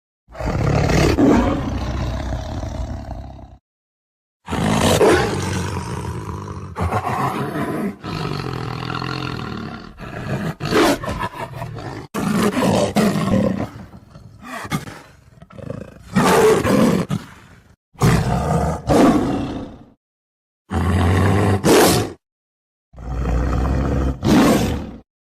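A series of leopard roars: about nine rough, loud calls, each one to three seconds long, with short silent gaps between them.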